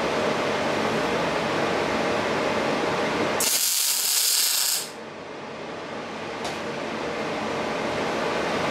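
Welding arc crackling for about a second and a half, a few seconds in: a single tack weld on a steel frame tube. A steady fan-like hiss runs underneath throughout.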